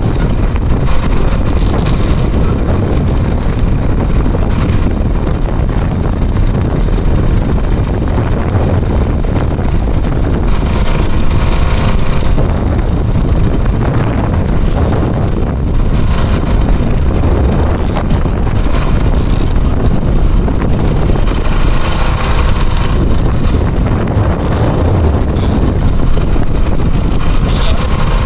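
Strong, stormy wind buffeting the microphone: a loud, steady rumble.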